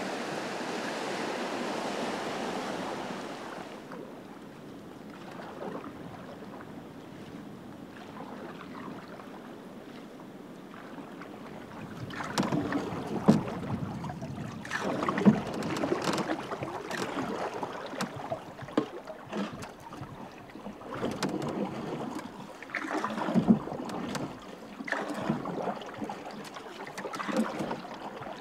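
Canoe being paddled: splashing, dripping paddle strokes about every two seconds, with light knocks of the paddle. A steady rushing noise stops suddenly a few seconds in.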